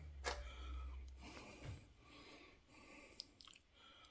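Faint clicks and soft rubbing, quiet handling noise with a low hum that fades out early on.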